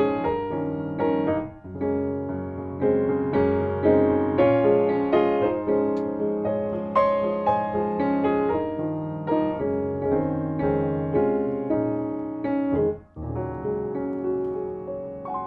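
Background music led by piano, with notes struck every fraction of a second over sustained chords; it pauses briefly about 13 seconds in.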